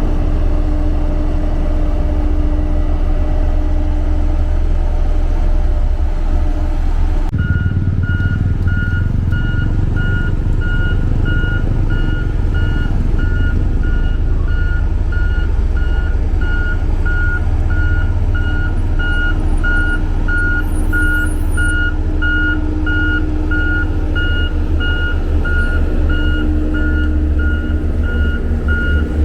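Heavy road-construction machine's diesel engine running. About seven seconds in the sound changes abruptly and a reversing alarm starts beeping evenly over the engine, signalling the machine is backing up.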